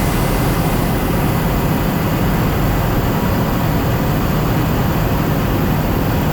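Steady drone of a light propeller airplane's engine and propeller heard from inside the cockpit, at reduced power on approach to land.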